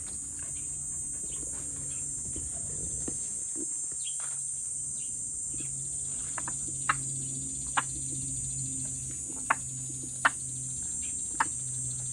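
Steady high-pitched insect drone like crickets, with a low hum beneath. About six short, sharp clicks come in the second half.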